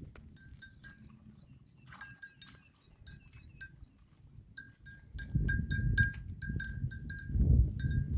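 A buffalo's neck bell clinking irregularly as the animal moves, short ringing notes at one pitch, sparse at first and then coming quicker. From about five seconds in, a loud low rumbling noise joins it.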